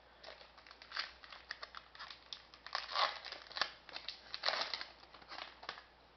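Foil wrapper of a hockey trading-card pack crinkling and tearing as the pack is opened, a run of irregular crackles and rustles that dies away near the end.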